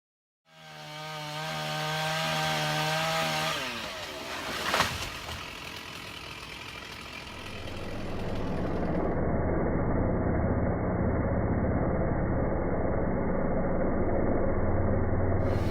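Gas chainsaw running at full throttle, its pitch dropping about four seconds in, with a sharp crack just before five seconds. It then runs on at a lower, steady pitch.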